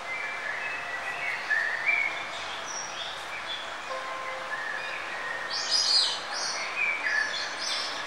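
Birds chirping and whistling in short phrases over a steady background hiss, with a louder flurry of high chirps about five and a half seconds in.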